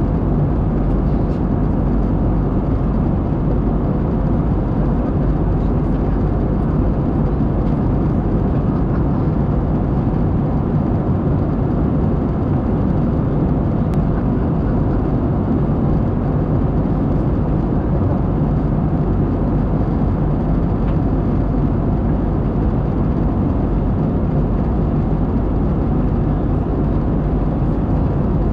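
Steady in-flight cabin noise of an Airbus A220, heard from a window seat beside the wing: the even drone of its Pratt & Whitney PW1500G geared turbofan engines and the rush of air past the fuselage, with no change in level.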